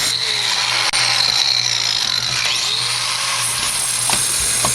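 High-speed power tool with a cutting wheel cutting an X into the head of a rusty steel frame rivet, giving a steady high-pitched whine. Its pitch dips and recovers about halfway through as the wheel bites into the rivet.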